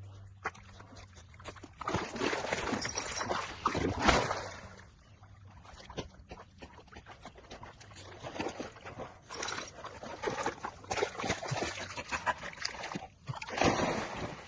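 A dog swimming and moving through water, with irregular splashing and sloshing that comes in surges, loudest a few seconds in and again near the end.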